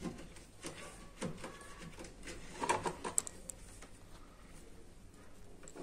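Small clicks and rustles of wires and a screwdriver being handled at a circuit board's terminal block, with a brief cluster of sharper clicks a little over halfway through.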